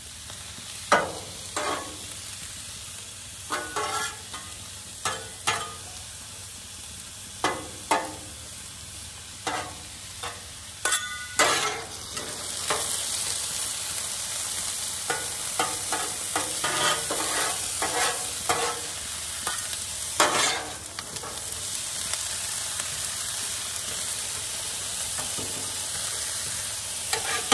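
Metal spatulas scraping and clacking on a Blackstone steel griddle top as diced potatoes are turned, over the sizzle of frying. The sizzle grows louder from about halfway through.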